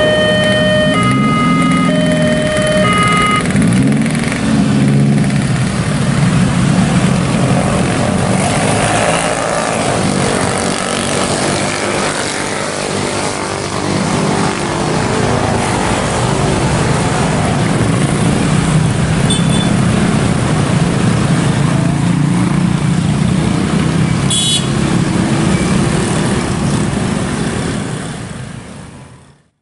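Level-crossing warning signal sounding its alternating electronic tones, stopping about three seconds in, as a crowd of motorcycles revs up and pulls away across the tracks. Then the steady running of many motorcycles and other road traffic crossing, fading out at the end.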